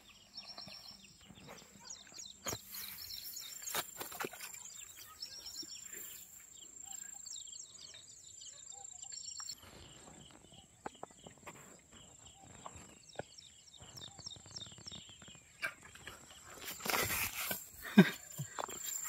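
Outdoor ambience: a steady high-pitched insect drone, with short repeated chirping trills in the first few seconds and scattered small clicks. A loud rustle and a sharp knock come near the end.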